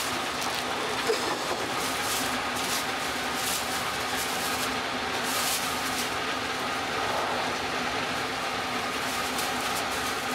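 Steady running noise of a moving sleeper express train, heard inside the carriage, with a few brief clicks on top.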